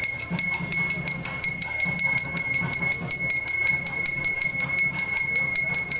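Brass puja hand bell rung rapidly and continuously for aarti, about seven strokes a second, its ringing tone held steady. A low rhythmic pulse runs underneath.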